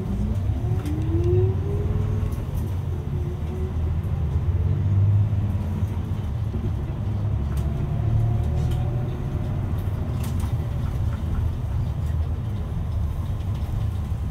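Bus engine and road rumble heard from inside the cabin. The engine note rises over the first couple of seconds as the bus accelerates, then runs on steadily.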